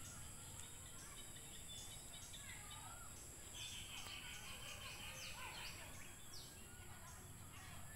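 Birds chirping faintly, short rising and falling calls scattered through, with a longer trill near the middle, over a steady high-pitched hiss.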